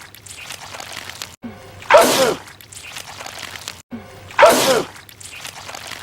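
A man sneezing loudly, each sneeze with a falling pitch. The same sneeze repeats twice, about two and a half seconds apart, as one short clip is looped.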